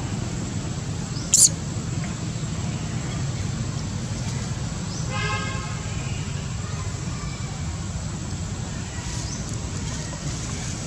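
Steady low outdoor rumble, with one short sharp click about a second and a half in and a brief tooting tone about five seconds in.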